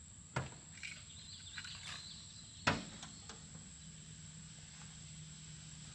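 Steady high-pitched trill of insects, typical of crickets, with two sharp knocks, the louder one near the middle, and a few lighter clicks.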